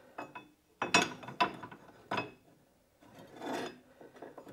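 Steel parts of an internal coil-spring compressor handled against a car's rear coil spring: a few sharp metal knocks and clinks, the strongest about a second in, and a scraping rub near the end as the lower plate is worked into place.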